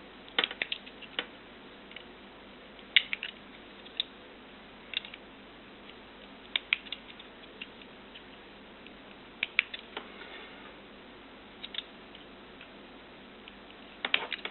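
Scattered sharp clicks and small snips at irregular intervals, a few close together, from hand tools stripping about 2 mm of insulation off the ends of thin network-cable wires.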